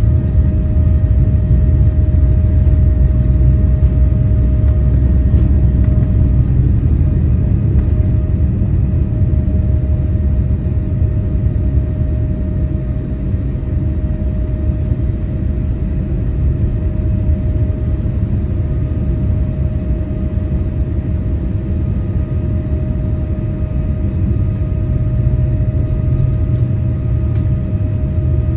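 Boeing 787-8 jet airliner heard from inside the cabin: a loud, steady low rumble of engines and airflow with a thin steady whine above it, easing slightly after about ten seconds.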